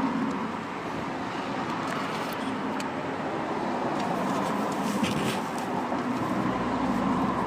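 Steady background traffic noise, with a few faint clicks.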